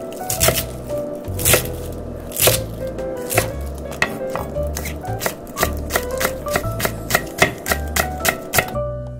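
Kitchen knife chopping cabbage and then green onions on a wooden cutting board: sharp knocks of the blade meeting the board, spaced out at first and coming quicker from about halfway, stopping shortly before the end.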